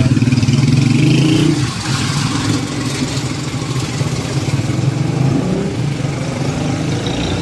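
A road vehicle's engine running close by, loudest in the first second and a half and then settling into a steady drone.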